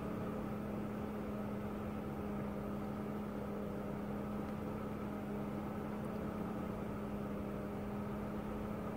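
A car engine idling outside the house, heard indoors as a steady, unchanging hum.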